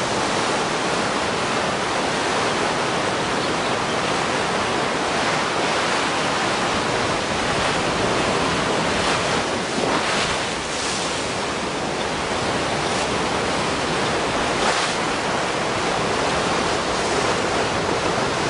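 Steady rush of tsunami surge water and surf, an even roar of moving seawater with a few brief swells in the middle.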